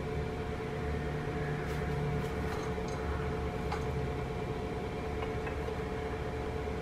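Steady electrical hum of a kitchen appliance, with a few faint light clicks as a plastic spatula touches the pot while spaghetti is lifted into a baking dish.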